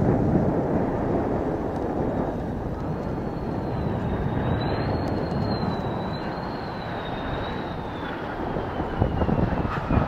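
Mitsubishi F-2 fighter's turbofan jet engine on approach, passing low over the runway: a heavy rumble with a high wavering whine that comes in a few seconds in and falls in pitch near the end. Wind buffets the microphone.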